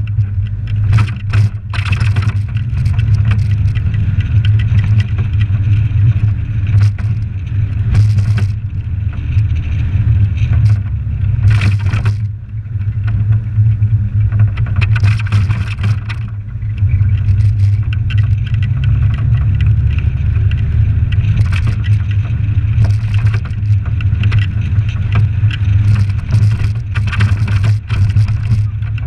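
Suzuki Samurai 4x4 driving on town streets, its engine a steady low drone that eases off briefly about twelve seconds in and then picks up again, with frequent sharp knocks and rattles throughout.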